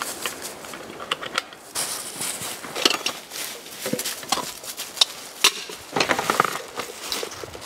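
Rummaging in a fabric backpack: irregular rustling, scraping and crinkling, with dry leaves crunching under a kneeling person.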